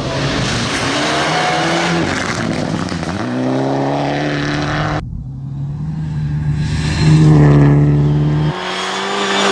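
Rally car engines running hard at high revs on a gravel stage, a steady engine note over the noise of tyres and gravel. The sound changes abruptly about halfway through and again near the end, as one car's sound gives way to another's.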